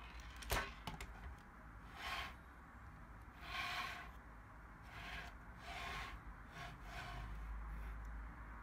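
Plastic LEGO Technic chassis being handled: a sharp knock about half a second in, then several short scraping and rubbing noises of plastic parts against the hand and table.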